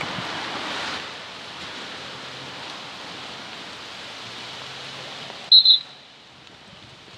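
Steady rushing outdoor noise, then two short, sharp blasts of a referee's whistle in quick succession about five and a half seconds in.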